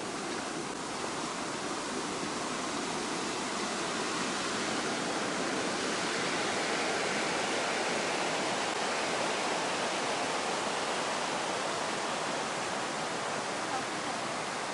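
Steady rush of flowing stream water, swelling slightly in the middle.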